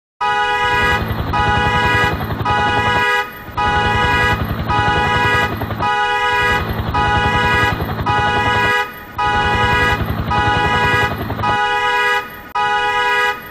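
Diesel locomotive air horn sounding a chord of several notes in repeated long blasts, over a low engine rumble; the horn breaks off briefly a few times.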